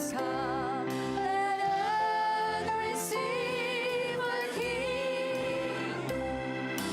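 A song playing: a singer holding long notes with vibrato over instrumental accompaniment.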